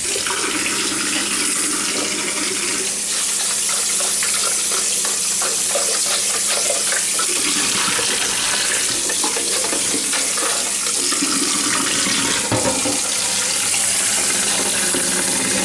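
Tap water running in a steady, unbroken stream into a sink, with a brief knock about three-quarters of the way through.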